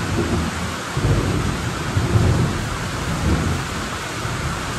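Steady heavy rain, with low rumbles swelling about a second in, around two seconds and again past three seconds.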